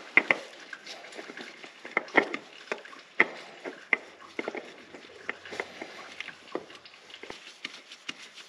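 Gloved hands screwing a new spin-on oil filter onto an engine by hand: scattered, irregular small clicks and rubbing as the filter is turned.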